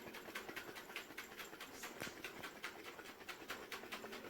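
A lidded jar of hot espresso and ice cream being shaken by hand, its contents sloshing in a quick, even rhythm of about five or six shakes a second.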